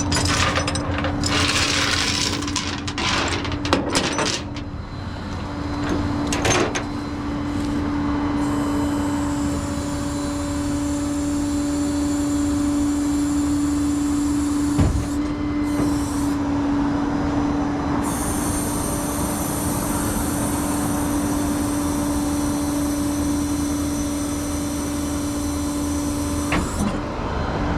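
Truck engine running steadily with a constant droning hum. Scattered knocks and clicks sound over it in the first few seconds, and there is a single knock about halfway through.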